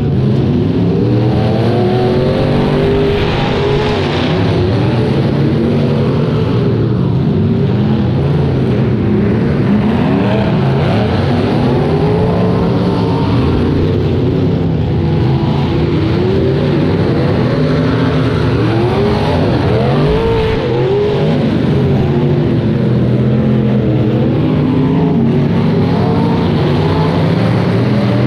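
Engines of several rear-wheel-drive demolition derby cars running at once, revving up and down over one another as the cars drive and maneuver.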